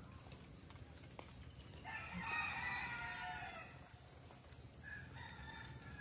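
A rooster crowing, one long call about two seconds in and a fainter call near the end, over a steady high drone of insects.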